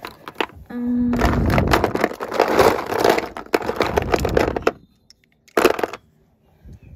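A hand rummaging through a drawer crammed with makeup, its plastic lipstick tubes, gloss bottles and cases clattering and rattling against each other for about four seconds, with one more short rattle near the end. A brief low steady tone comes just before the rummaging starts.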